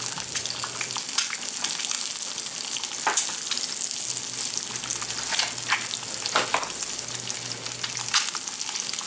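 Eggs frying in hot oil in a pan: a steady crackling sizzle with several sharper pops of spitting fat.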